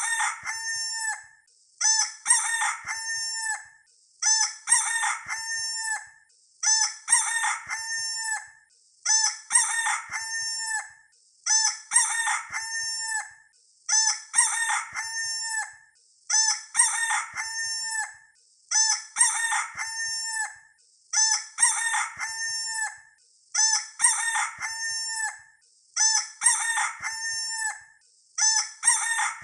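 A rooster's crow played as a looped sound effect: the same cock-a-doodle-doo repeats identically about every two and a half seconds, with short gaps between.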